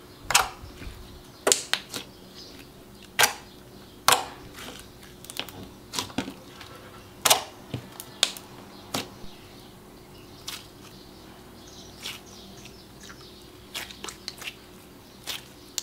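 Clear gummy slime being stretched, folded and squeezed by hand, giving irregular sharp pops and clicks, some much louder than others.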